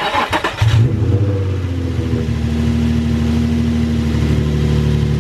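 Nissan 350Z's V6 engine cranked by the starter for a moment, catching under a second in with a brief flare, then settling into a steady idle.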